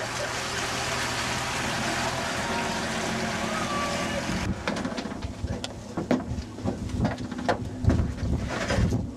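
Engine of a Mercedes motorhome running steadily as it drives over a field, with a steady hiss over it. About halfway in this gives way to a series of knocks and thumps as rolled carpets are loaded into the back of a box van.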